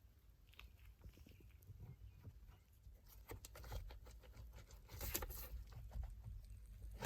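Faint clicks and plastic rattling as the driver's airbag module of a 2019 Jeep Cherokee is worked loose from its steering-wheel latches by pushing the release pins. The clicking picks up about halfway through, with a louder burst a couple of seconds later and a sharp click at the very end.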